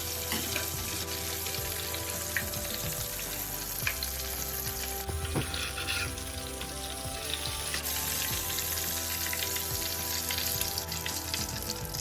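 Flour-coated hake fillets deep-frying in hot oil: a steady sizzle with scattered crackles and pops.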